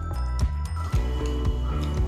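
Background music with sustained notes over a steady beat of about two strokes a second.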